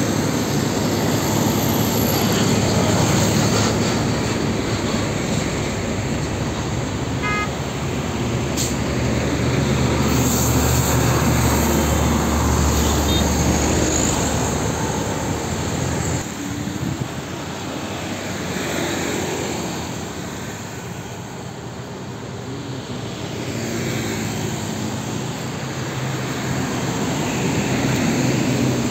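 Heavy diesel trucks passing on a road one after another, with engine drone and tyre noise swelling as each goes by and easing between them, mixed with lighter traffic.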